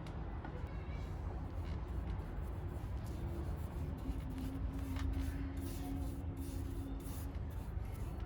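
Light rubbing and brushing strokes on a wooden axe handle as it is being finished, several in quick succession in the second half. A steady low rumble runs underneath, with a faint engine-like hum in the middle.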